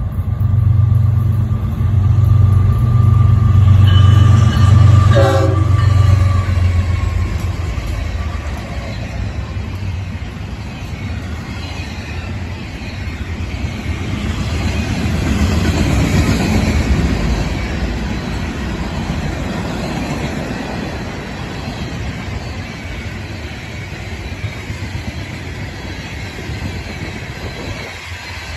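Diesel freight locomotives running close by with a heavy low rumble in the first several seconds. Then a long string of freight cars, double-stack container cars and tank cars, rolls past with steady wheel and rail noise that swells again about halfway through.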